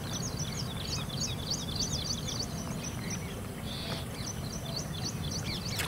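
Small birds chirping: a rapid string of short, high calls, densest in the first couple of seconds and sparser after, over a steady low background rumble.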